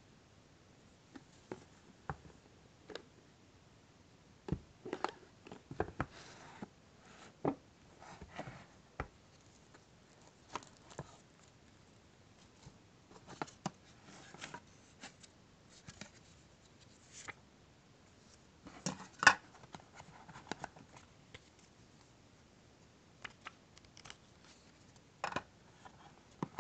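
Hands handling a smartphone box and its packaging: scattered clicks, taps and short rustles of cardboard and plastic, the loudest cluster about two-thirds of the way through.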